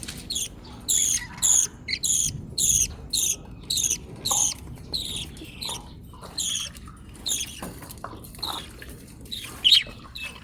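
Budgerigar chicks begging with a rapid run of short, high, raspy calls, about two a second, while being fed by their father. The calls grow more scattered in the second half, with one loud call near the end.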